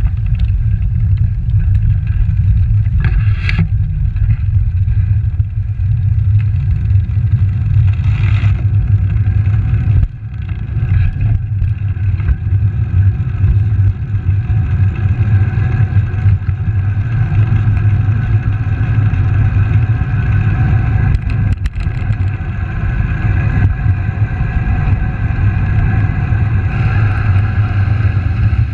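Wind buffeting the microphone of a handlebar-mounted camera on a moving road bicycle: a steady, loud low rumble, with tyre and road noise from rolling on asphalt above it.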